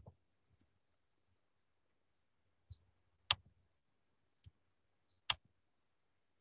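Three sharp, brief clicks, one at the start, one about three seconds in and one near the end, with two fainter ticks between them and near silence otherwise.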